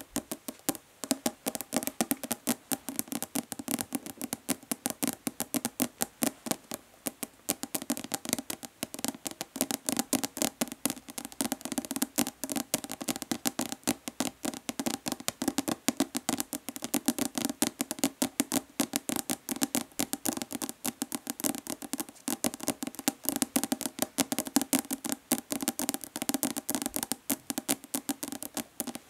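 Long natural fingernails tapping fast and hard on a hollow plastic lotion bottle: rapid, uneven clicks with a hollow body resonance, several taps a second.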